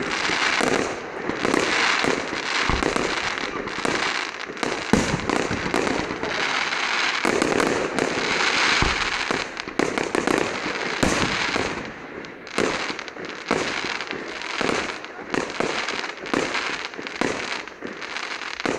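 Fireworks display: a rapid barrage of shell bursts, bang after bang, over dense crackling from the glittering stars. After about twelve seconds the bangs come more spaced out.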